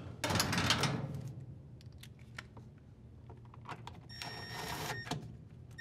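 Cordless drill driver running for about a second, about four seconds in, driving a screw into the bottom of a washer transmission. Before it comes a rustle and a few small clicks of the screw and terminal being handled.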